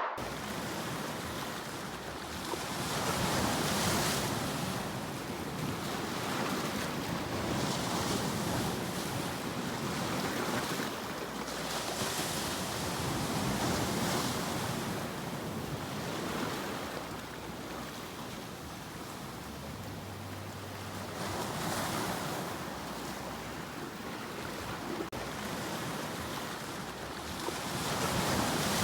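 Ocean waves breaking and washing on the shore, a steady rush that swells and falls back every several seconds.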